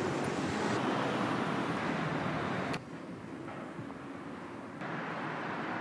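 City street ambience: a steady wash of road traffic with some wind on the microphone. It changes abruptly, dropping a little less than halfway through and rising again near the end.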